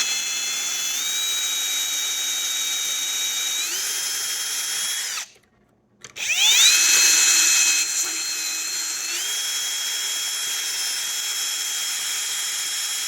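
Electric drill drilling out a car ignition switch's lock cylinder. Its whine steps up in pitch a few times as the bit's load changes. It stops about five seconds in and spins back up about a second later.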